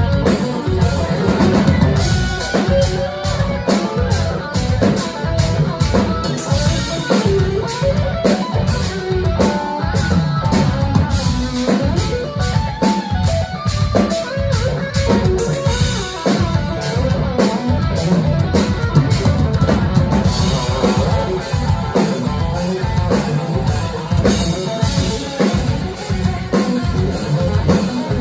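Live instrumental progressive metal band playing: electric guitars and bass over a drum kit, with rapid, evenly driven kick drum strikes, loud and continuous.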